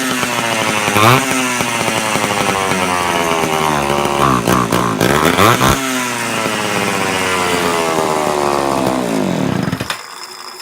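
Homelite Big Red XL chainsaw's two-stroke engine running, revved up in short blips several times, then its pitch sinking slowly until it stops about ten seconds in. It is run to check bar oiling, and the oil pump is working.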